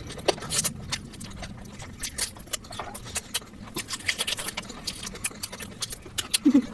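Close-miked eating sounds: a person chewing food with many irregular wet mouth clicks and smacks.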